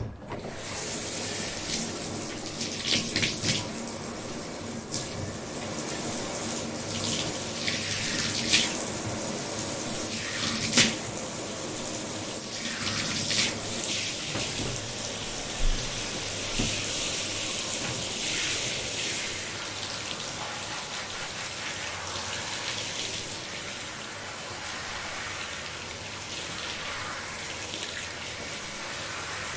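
Water running steadily from a tap into a sink, with irregular sharper splashes now and then.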